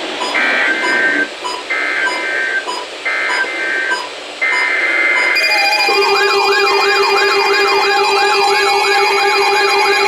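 Three short bursts of EAS SAME header data tones, followed about five seconds in by a bank of NOAA weather-alert radios all setting off their alarms at once. The alarms make a loud warbling, siren-like sound that cycles about twice a second over a steady low tone.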